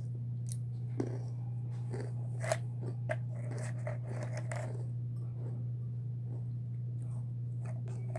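Close-up eating sounds: chewing with scattered crunches and small mouth clicks, over a steady low hum.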